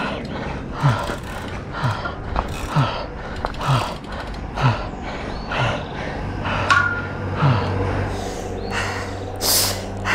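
A cyclist breathing hard at an all-out sprint effort, with heavy grunting exhalations about once a second and a louder rush of breath near the end.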